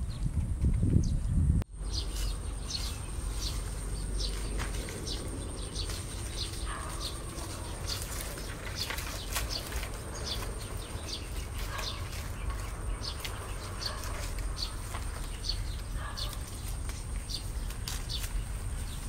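Rural outdoor ambience: small birds chirping repeatedly over a steady low rumble and a faint steady high-pitched hum. For the first second and a half there are louder low rustling steps, then the sound cuts.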